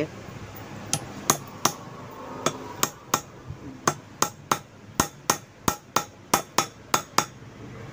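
Hammer driving a new front-fork oil seal into a Yamaha R15's fork lower leg through a homemade metal seal driver. A run of about seventeen sharp metal-on-metal taps, mostly about three a second, stopping shortly before the end.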